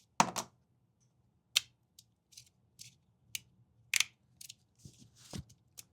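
3D-printed magnetic fidget slider with a clicky ball in the middle being slid by hand. It gives a string of sharp, irregularly spaced clicks as its plates snap from position to position.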